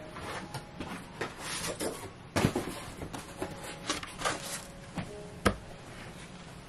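Brown paper package rustling and crinkling as it is handled, with two sharp knocks, about two and a half and five and a half seconds in.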